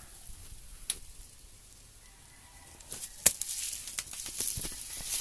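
Rustling and scuffing of someone moving under a vehicle, with a few sharp clicks, the loudest about three seconds in.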